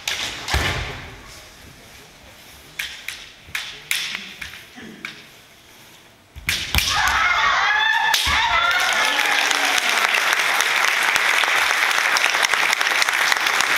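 Kendo bout: sharp clacks of bamboo shinai and knocks scattered through the first half. Then, from about six seconds in, a sudden loud and steady wash of noise with high shouts running through it.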